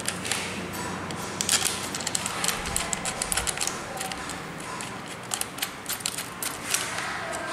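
Irregular small metallic clicks and rattles as a handlebar clamp and its bolts are worked around a brush cutter's aluminium shaft by hand.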